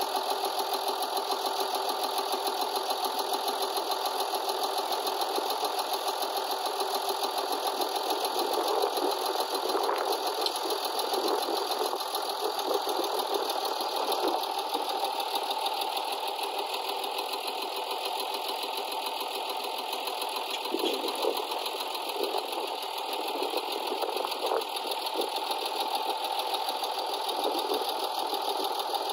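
Hesston 1880DT tractor's diesel engine running steadily at low revs, with a fast, even clatter and a few brief louder stretches.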